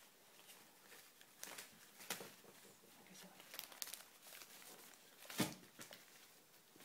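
A baby handling and mouthing a cut lemon half: faint scattered clicks and soft rustles, with one louder click about five and a half seconds in.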